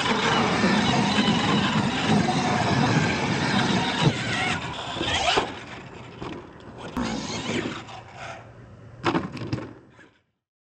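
Radio-controlled monster truck running on a dirt track: its drivetrain and tires churning loose dirt, loud for the first five seconds or so, then quieter with a few knocks as it bounces and lands, the loudest about nine seconds in. The sound cuts out about a second before the end.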